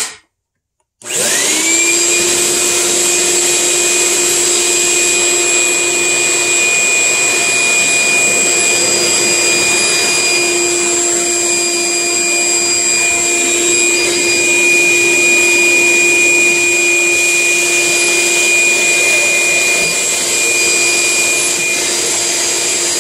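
Old Craftsman wet/dry shop vac switched on about a second in: its motor spins up and then runs loud and steady with a high whine, the hose sucking up debris from a concrete floor. It is running normally with a newly fitted replacement filter.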